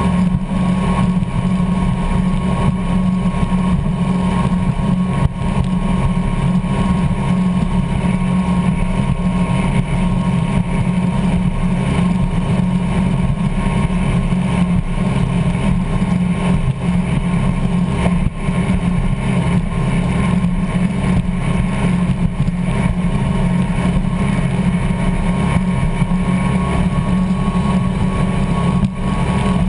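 Offshore powerboat's engines running steadily at speed: a constant low drone mixed with the rush of wind and water past the hull.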